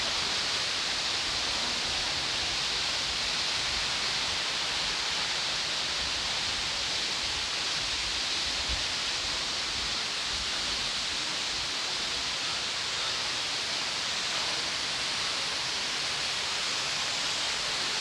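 Rani Duduma waterfall: a steady rush of falling water, unbroken and even.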